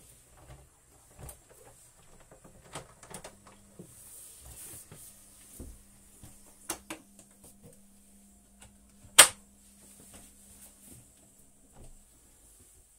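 Hinged companionway stair steps being lifted open and handled: scattered light knocks and clicks, with one sharp, loud clack about nine seconds in. A faint low hum runs under the middle part.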